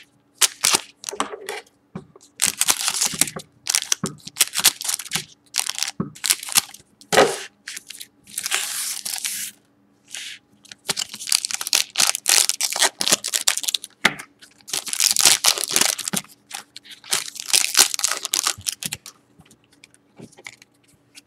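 Foil wrappers of Panini Prizm trading-card packs crinkling and tearing as they are handled and ripped open by hand. The sound comes in irregular bursts with short pauses between them, some bursts lasting a second or two.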